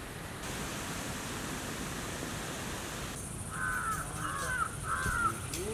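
A crow cawing three times in quick succession over a steady background hiss, the caws starting about halfway through.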